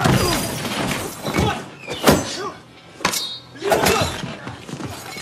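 Film fight sound effects: a run of hard thuds and body blows, about four sharp hits in all, with short grunts between them.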